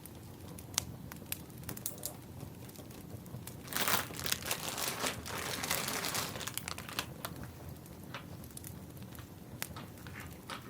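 Firewood crackling with scattered sharp pops, and a louder rustling, crinkling stretch from about four to seven seconds in.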